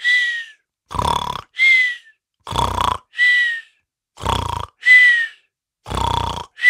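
Snoring in a snore-then-whistle pattern: a rough snore followed by a short, high, slightly falling whistle, repeated about four times at an even pace of roughly one cycle every 1.7 seconds.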